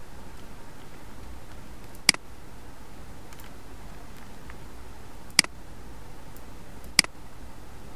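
Three sharp computer mouse clicks over a steady low hiss: one about two seconds in, then two more near the end, about a second and a half apart.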